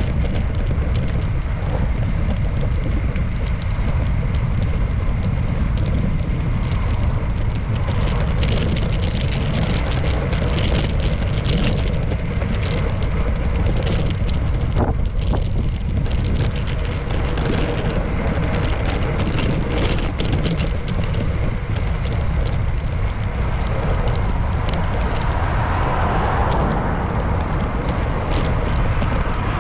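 Ride noise on a bicycle-mounted GoPro Hero8: a steady heavy rumble of wind and road on the camera, with scattered sharp clicks and rattles from the bike. A broad swell of noise comes near the end.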